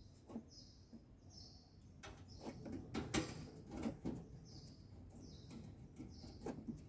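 Ariston washing machine control panel being set to the spin cycle: faint clicks from the program selector and buttons, with several short high-pitched beeps.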